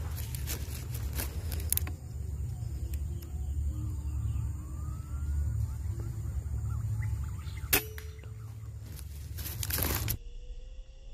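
A single sharp pop of a PCP air rifle firing, about eight seconds in, over a steady low rumble.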